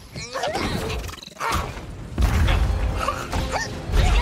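Animated fight sound effects: heavy impacts and a crash of rubble over dramatic background music. Loud low hits come about a second and a half in, again at about two seconds, and near the end.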